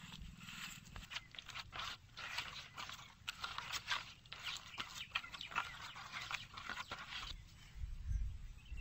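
Hand squishing and mixing wet spice paste in a steel plate: a dense run of wet squelches and small scrapes that stops about seven seconds in. A low rumble follows near the end.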